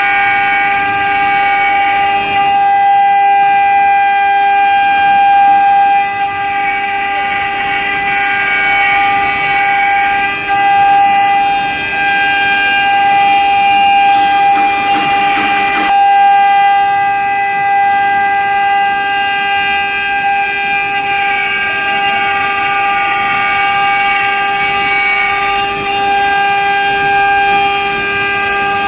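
The water-cooled 2.2 kW spindles of a three-head CNC engraving machine run steadily with a high, even whine while engraving. There is a brief noisier stretch about halfway through.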